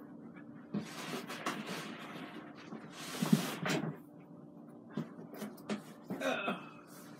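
Cardboard scraping and rustling as a heavy boxed appliance is pulled out of a cardboard shipping box, with scattered knocks and two longer scrapes, about one second and about three seconds in.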